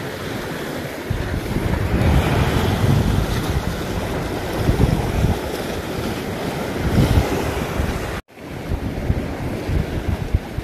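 Sea waves washing and breaking against volcanic rocks, with wind buffeting the microphone in gusts. About eight seconds in, the sound cuts out for an instant, then the surf and wind resume.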